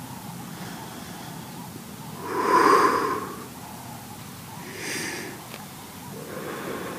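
A person breathing heavily close to the microphone: one loud breath about two and a half seconds in, then two softer breaths near five seconds and near the end.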